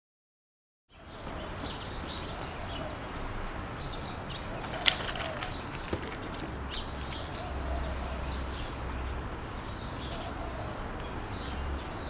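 Park ambience fading in after a second of silence: birds chirping over a steady low rumble. About five seconds in comes a single sharp knock, the loudest sound, with a smaller knock a second later.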